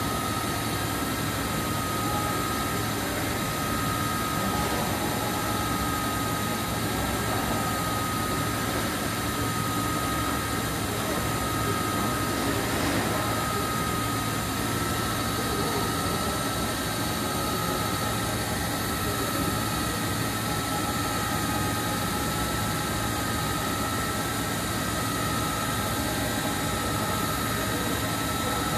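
Mikron UCP 800 Duro 5-axis machining center running with its rotary table turning slowly: a steady machine hum with a constant high whine and a low drone, unchanging throughout.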